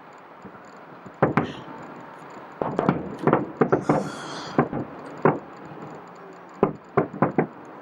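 Fireworks shells bursting in a quick, uneven string of about a dozen bangs, each with a short echoing tail, and a brief high hiss about four seconds in.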